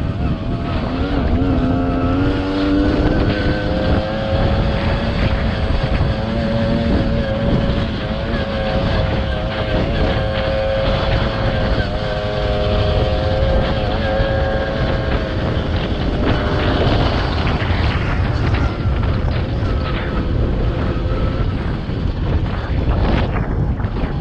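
Tomos ATX's single-cylinder two-stroke engine pulling the bike along a dirt track. Its pitch climbs over the first few seconds, holds steady, then eases off later. Heavy wind buffeting on the microphone runs underneath.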